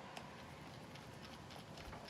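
Faint, irregular small clicks and taps of metal fishing-reel parts and tools being handled during reassembly, over a faint steady hum.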